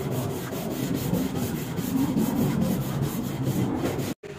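Steady rubbing, scraping noise made of quick repeated strokes, which cuts off abruptly near the end.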